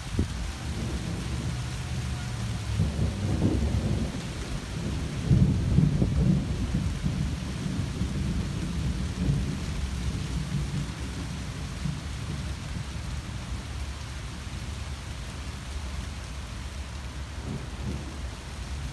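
Steady rain falling through tree leaves, with rolling thunder rumbling low underneath. The thunder is loudest about five seconds in and dies away over the following seconds.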